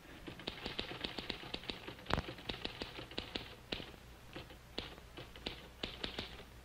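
Typewriter keys clacking in quick, irregular runs of keystrokes, with one louder knock about two seconds in.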